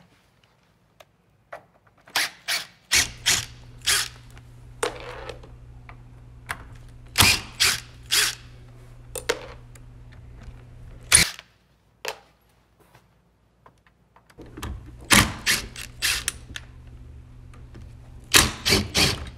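Makita 18V cordless driver running in two long stretches as it backs out the screws holding a recliner's armrest to the metal seat frame, with sharp clacks and knocks mixed in.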